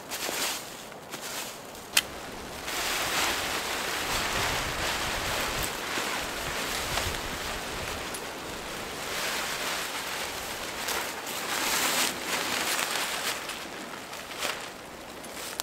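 Fabric of a OneTigris Smokey Hut teepee tent swishing and rustling as it is shaken out and dragged over dry leaf litter, in surges that rise and fall. A single sharp click about two seconds in.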